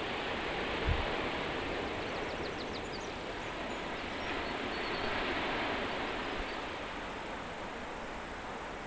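Sea surf washing against the shore: a steady hiss that swells a little about halfway through. A short low bump near the start is wind buffeting the microphone.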